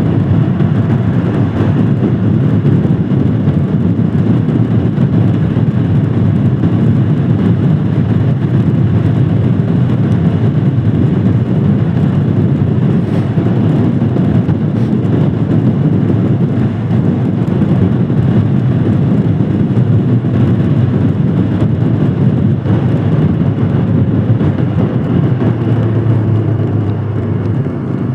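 Royal Enfield Himalayan Scram 411's single-cylinder engine running while riding, mixed with steady wind and road noise. Near the end it settles into a steadier low note.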